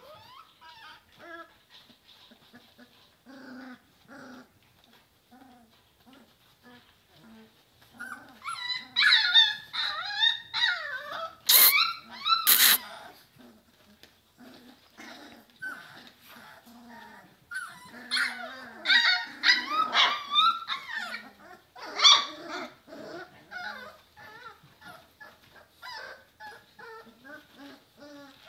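German shorthaired pointer puppies whining and squealing, many high calls overlapping, loudest in two spells, the first about a third of the way in and the second about two thirds in. Two sharp clicks come in the middle of the first spell.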